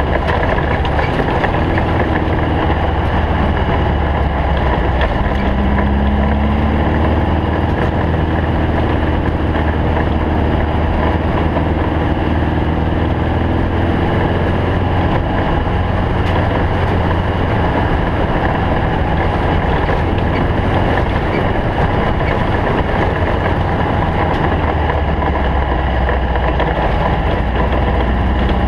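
Stock Volkswagen Beetle desert race car running loud and steady at speed. Its engine pitch climbs and falls several times between about five and fourteen seconds in, over constant road and wind noise.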